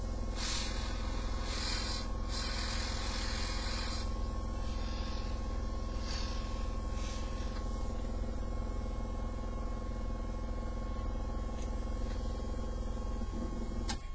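Electric air pump running with a steady low hum and buzz, putting out a wide blast of air, with patches of hiss in the first few seconds.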